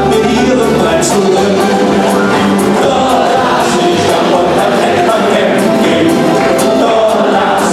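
Live band music: several men singing a Kölsch folk song together in harmony, over band accompaniment with a steady percussion beat.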